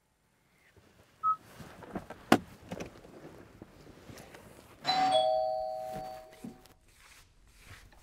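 A two-note ding-dong doorbell chime about five seconds in, a higher note then a lower one, ringing out and fading over a second and a half. Before it come a brief high beep, a loud sharp click, the loudest sound here, and a few softer knocks and scuffs.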